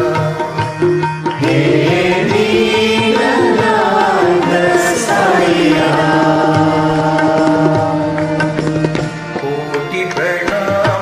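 Devotional Sai bhajan, sung over a karaoke backing track with tabla.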